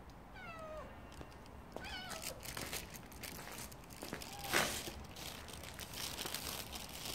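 Stray cat giving two drawn-out, yowling meows in a territorial standoff with a rival cat, the first falling in pitch and the second wavering. Scuffing and knocking noises follow, with one sharp knock about four and a half seconds in.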